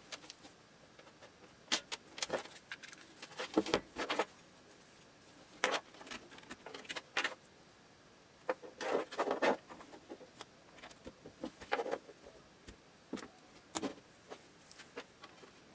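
Handling noises: scattered clicks, knocks and short rustling scrapes at irregular intervals, with a busier cluster around the middle.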